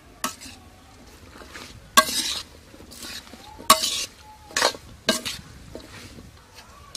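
Metal spoon clinking and scraping against a metal karahi as raw potato and eggplant pieces are tossed with spices. Irregular strokes, about six of them, the loudest about two seconds in.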